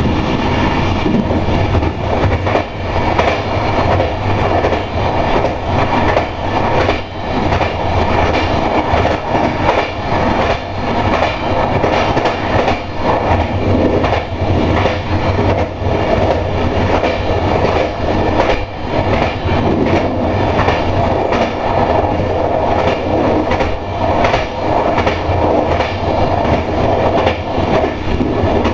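Electric train running steadily at speed, heard from the driver's cab: a continuous rumble and hum with wheels clicking over rail joints.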